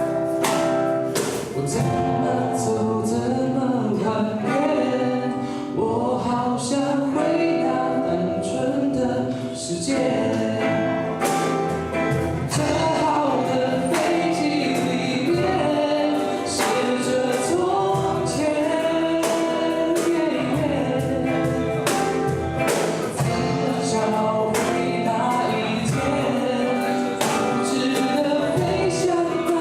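Live song performance: several voices singing together over strummed acoustic guitar accompaniment.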